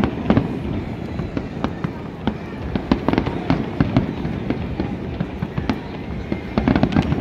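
Aerial fireworks display: a fast, irregular string of shell bursts, bangs and crackles, thickest around the middle and again near the end.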